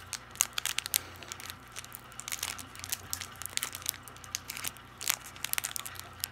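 Foil Pokémon Sword & Shield Fusion Strike booster pack wrapper crinkling and tearing as it is ripped open by hand, in many irregular sharp crackles.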